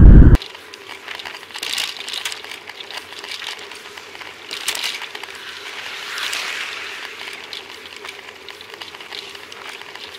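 Loud wind on the microphone cuts off just after the start, leaving a quiet crackling rattle and hiss picked up by a rear-facing Cycliq bike camera riding on the bicycle. A car passes close by about six seconds in, a brief swelling hiss of tyres and air.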